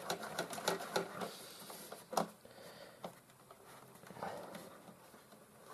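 Light clicks and rubbing of a hand working at a stiff Molex plug in an opened DVD player, with one sharper click about two seconds in.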